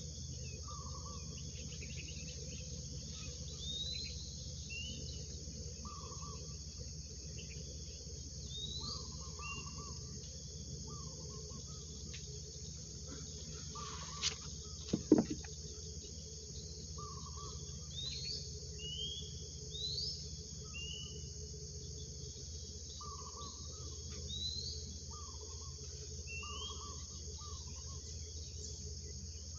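Steady high-pitched chorus of insects, with short rising bird chirps every couple of seconds and a few lower calls. A couple of sharp clicks about halfway through.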